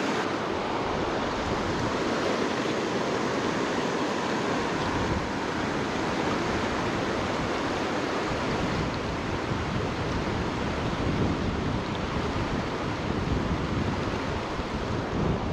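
Fast mountain creek rushing over rocks through a riffle: a steady, even rush of water.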